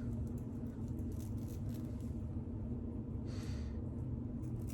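Scissors trimming the lace of a lace-front wig: faint snipping clicks over a steady low hum, with one soft rustle about three seconds in.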